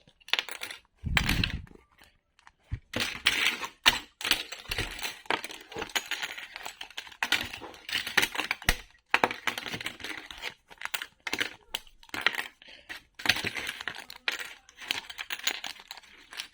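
Puzzle pieces being pulled apart and handled, in quick irregular clicks, snaps and scrapes, with a dull bump about a second in.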